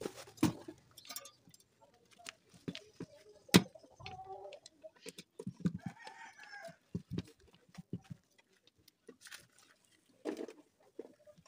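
Chickens calling from a backyard coop, with one arched call from the rooster about six seconds in and shorter calls just before it. Scattered sharp clicks and knocks run throughout; the loudest comes about three and a half seconds in.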